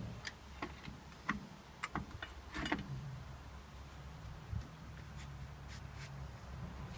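Tools and brake parts being handled during rear drum-brake assembly: a series of short sharp clicks and knocks in the first three seconds, over a steady low hum.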